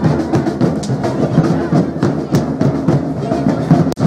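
Batucada drum group playing a dense, driving samba-style rhythm on drums and percussion. The sound cuts out briefly just before the end.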